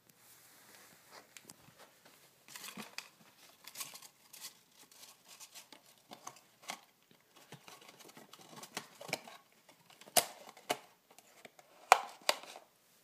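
Cardboard box handled by hand: irregular crinkling and rustling of the cardboard, with a few sharper cracks near the end.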